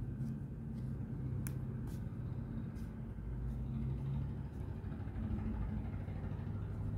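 A low, steady motor hum, like an engine running, with a few faint light clicks in the first few seconds.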